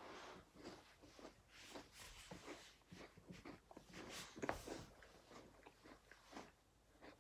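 Faint eating sounds close to the microphone: irregular chewing with small crunches and mouth clicks.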